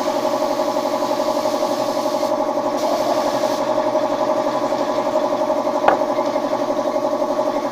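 A machine runs steadily with a fast, even pulse. A hiss of air sounds over it for the first three and a half seconds, with a short break, and a single sharp clink comes about six seconds in.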